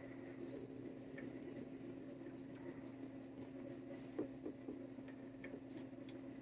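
Quiet room tone with a steady low hum and a faint rustle of a suede work glove stroking a cat's fur, with a few soft clicks about two-thirds of the way through.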